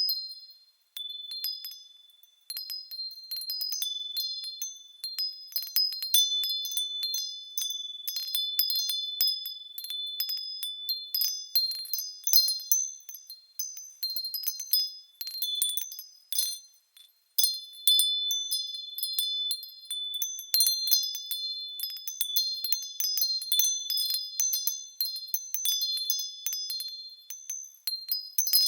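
Wind chimes ringing in a breeze: high, clear tones at several pitches, struck irregularly and overlapping as they ring on. There are brief lulls just after the start and about midway.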